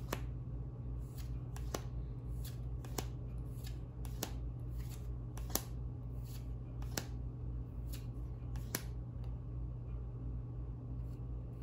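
Trading cards being handled and flipped one by one, with short, sharp clicks of card edges about once a second over a steady low hum.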